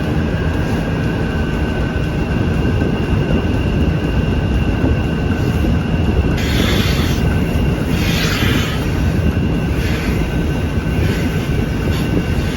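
Milking parlor machinery running: a loud, steady mechanical drone with a faint high whine. From about halfway in come short hissing bursts, roughly every second or two.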